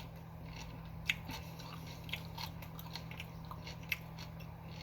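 Close-up chewing of a sub sandwich: scattered soft, wet mouth clicks and smacks, the sharpest about a second in and near the end. A steady low hum runs underneath.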